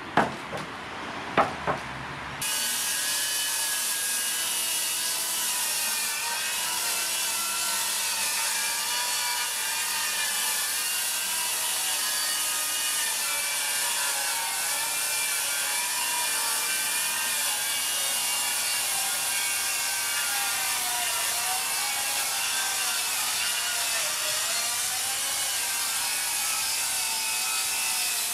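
A few sharp knocks, then from about two and a half seconds in Makita 40V XGT cordless circular saws rip lengthwise through pine boards. The cutting noise is steady, with the motors' whine wavering under load.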